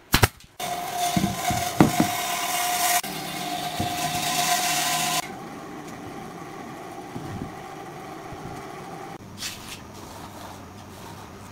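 A brad nailer fires twice at the very start. Then a machine runs steadily with a high hiss and a held hum for about five seconds, with a few knocks of wood. It drops to a quieter hum that stops about nine seconds in.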